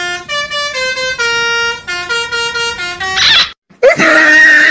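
Basuri telolet bus horn playing a quick tune of stepped notes, which cuts off about three seconds in. After a short break, a high voice with bending pitch begins near the end.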